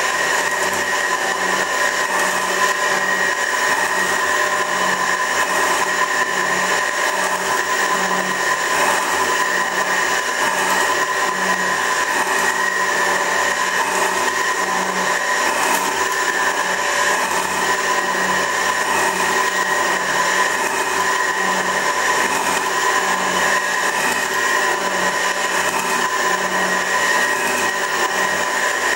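24-inch Värnamo metal shaper running, its ram going back and forth taking light cuts across a steel part. A steady whine from the drive with a low pulse repeating about every second and a half to two seconds, one for each stroke of the ram.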